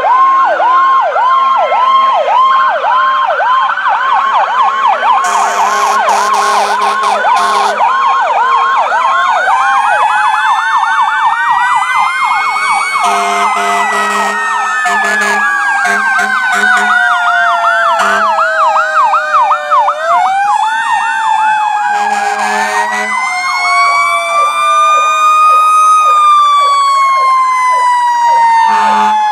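Several fire apparatus sirens sounding at once: a fast yelp cycles a couple of times a second over slow wails that climb and fall over several seconds. Low horn blasts break in three times.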